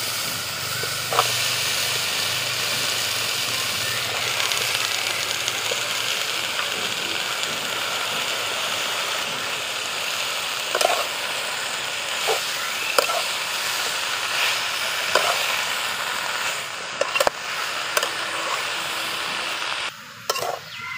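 Spice paste sizzling steadily in an aluminium karahi as bottle-gourd shoots and potato pieces are tipped in and stirred, with a metal spatula clicking and scraping against the pan now and then. The sizzle cuts off abruptly about a second before the end.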